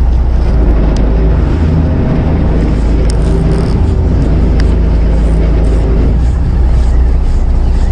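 Steady low rumble of a fishing boat's engine running, mixed with wind on the microphone.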